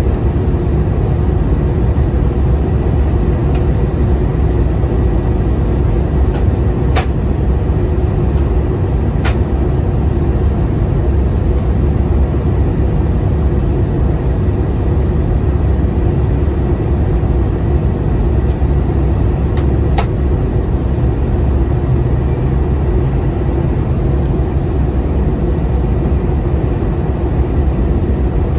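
Steady cabin noise inside an Airbus A320 on descent for landing: a low engine and airflow rumble with a faint steady hum. A handful of sharp clicks stand out between about six and twenty seconds in.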